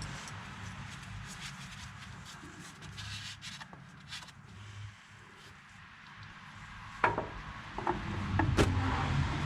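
Rag rubbing and wiping the tractor's hydraulic filter mounting surface clean, a soft scratchy rubbing, with a sharp knock about seven seconds in and louder rustling near the end.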